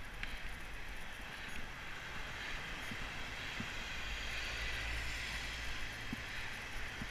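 Wind rumbling on a helmet-mounted camera's microphone while cycling along a road, with road and traffic noise beneath; the rumble swells a little in the middle.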